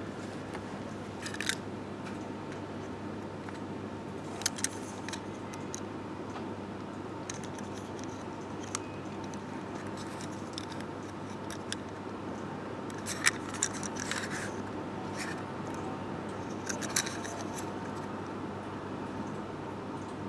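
Scattered light clicks and clatters of toy pieces being handled, a dozen or so short knocks spread over the stretch with a small cluster past the middle, over a steady low hum.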